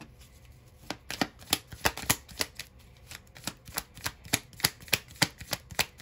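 A deck of affirmation cards being shuffled by hand, a steady rhythm of soft card slaps at about three or four a second, starting about a second in.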